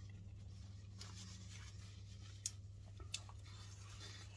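Faint rustling and scraping as food and its packaging are handled, with two small clicks about halfway through, over a steady low hum.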